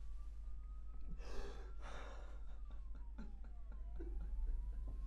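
A faint police siren wailing, its pitch sliding slowly up and down, with two sharp, shaky breaths from someone crying about a second and a half and two seconds in.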